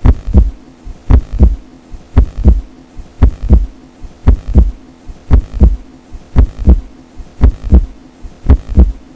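Low double thumps in a steady heartbeat-like rhythm, one pair about every second, over a faint steady low hum.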